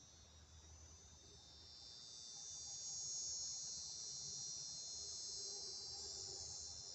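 Insects trilling in a steady, high-pitched chorus. It swells about a third of the way in and fades near the end.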